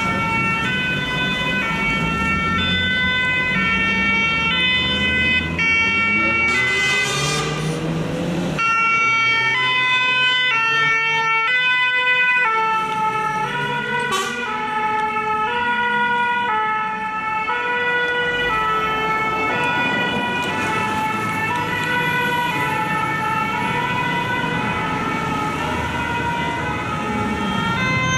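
French two-tone emergency sirens of Paris Fire Brigade vehicles, switching back and forth between two notes about every two-thirds of a second, over the engine and traffic noise of the passing trucks.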